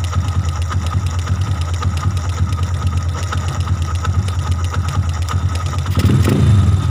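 Air-cooled single-cylinder motorcycle engine idling steadily while it warms up, during carburettor tuning. About six seconds in it briefly gets louder.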